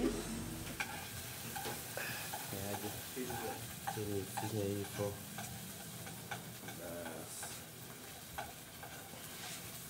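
Clothing rustling against a handheld phone's microphone, heard as a steady crackling hiss, with scattered footsteps on a tiled floor.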